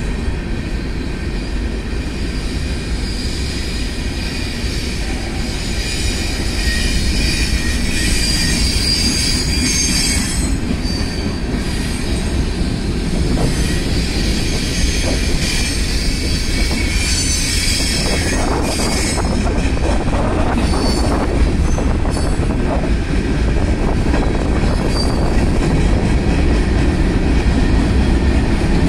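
Norfolk Southern freight train's tank cars and hopper cars rolling past with a steady low rumble. High wheel squeal comes and goes over it, strongest about a third of the way in and again just past the middle.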